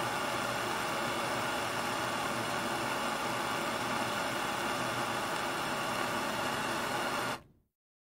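Car-wash water spray heard from inside the car: a light, steady hiss of water striking the car's body and windows. It stops abruptly near the end.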